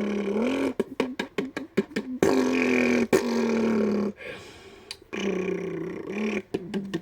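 A boy imitating a car engine with his mouth: a buzzing hum broken by rapid stuttering cut-offs, then a long held note. It fades about four seconds in and starts up again a second later.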